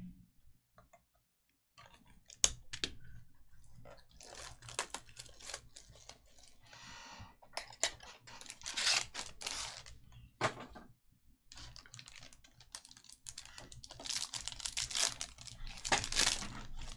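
Foil trading-card pack wrappers crinkling and tearing open, with sharp clicks and taps from a cardboard card box being handled. The loudest is a single sharp click about two and a half seconds in.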